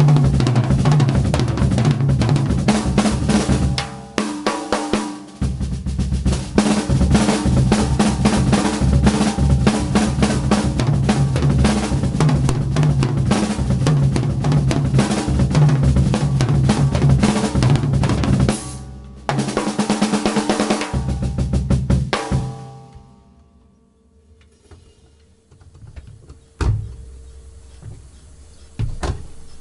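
Acoustic drum kit played hard and fast: snare, bass drum, toms and cymbals in dense rolls and fills, with two short breaks. The playing stops a little over 20 seconds in and the kit rings out, followed by a few light knocks.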